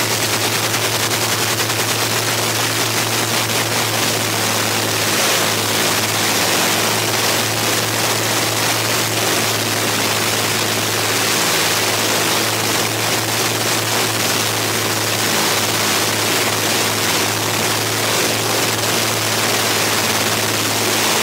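The twin Rolls-Royce Merlin V-12 engines of a de Havilland Mosquito T.Mk.III running steadily on the ground, a loud, even low drone under a heavy rushing noise.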